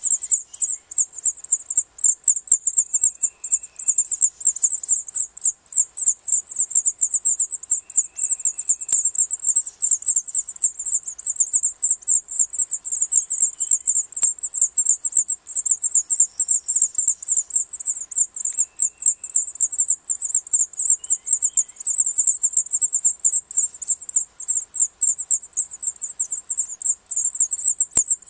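House finch nestlings begging: a continuous rapid stream of very high-pitched cheeps, several a second, as the adult male feeds them at the nest. Faint, brief lower chirps come in now and then.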